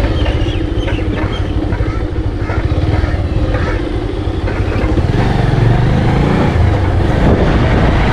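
Motorcycle engine running as the bike rides along, with wind rumbling on a helmet-mounted action camera's microphone. The low rumble grows a little louder about five seconds in.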